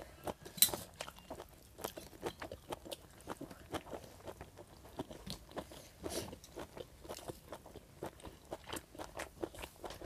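A person chewing and biting boiled pork offal close to a clip-on microphone: irregular short crunches and mouth clicks, with one sharper snap about half a second in.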